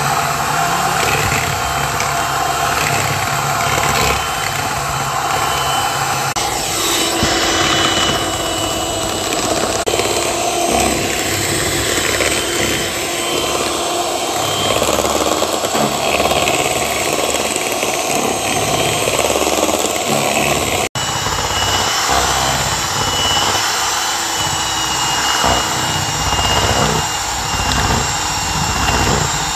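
Electric hand mixer running steadily, its beaters whipping eggs and sugar in a plastic bowl. The sound breaks off for an instant about two-thirds of the way through.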